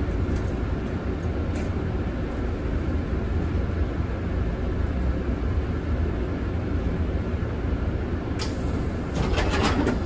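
Route bus under way, heard from inside: steady engine and road rumble. A brighter hissing noise comes in suddenly near the end.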